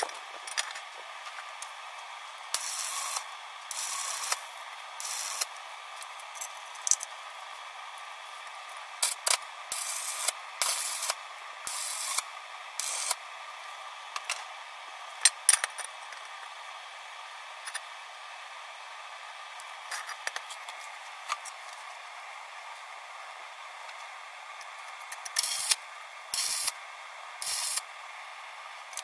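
Stick arc welder laying short tack welds on steel tubing: about ten bursts of arc hiss, each under a second, in three clusters, with a few sharp clicks in between.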